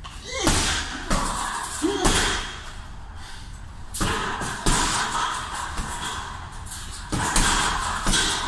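Punches landing on a hanging heavy punching bag: a string of uneven thuds, about nine hits, some coming in quick pairs.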